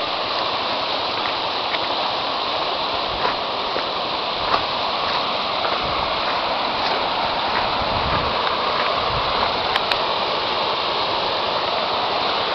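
River water rushing steadily over shallow rapids and stones.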